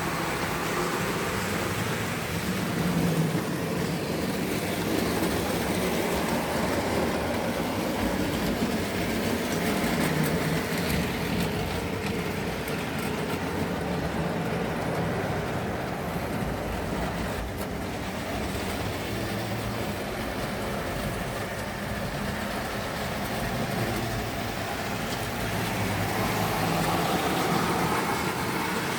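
Tri-ang OO gauge model trains running around the track: a steady rumble and clatter of small wheels on rail with the hum of their electric motors, swelling a little near the end.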